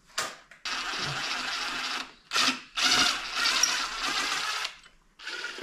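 Cordless power tool run in several bursts, the longest about two seconds, spinning out bolts on a Honda Z50 mini bike engine.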